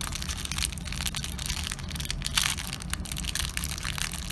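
Clear plastic wrapping crinkling and crackling as it is handled and pulled off a small metal keychain, a dense, irregular run of sharp crackles.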